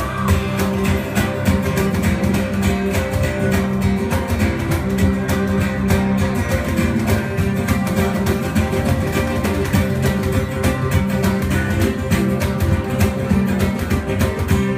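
Music: a band playing with strummed guitar over a steady rhythm.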